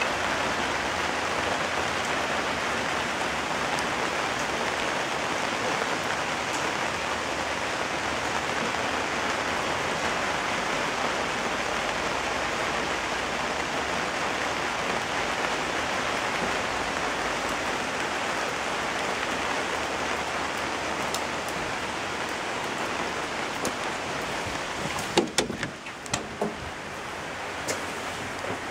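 Steady rain falling, pattering on an umbrella held overhead. A few sharp knocks and clatters come near the end.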